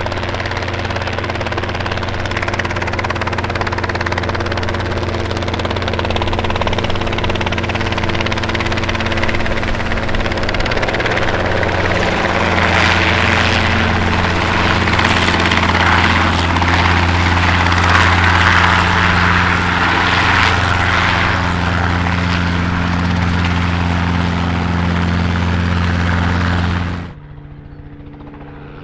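Robinson R22 Beta helicopter landing, its piston engine and rotor running steadily and growing louder toward the middle. About 27 seconds in it cuts off abruptly, and a much fainter, lower aircraft engine hum takes over.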